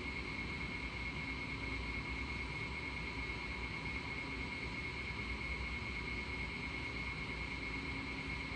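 Steady creepy hallway ambience: a constant low rumble and hiss under an unwavering high-pitched whine.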